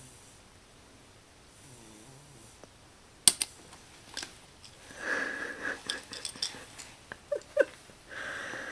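A three-month-old baby with a cold snoring softly, then a sharp click about three seconds in, followed by a second click and rustling handling noises with two short squeaks near the end.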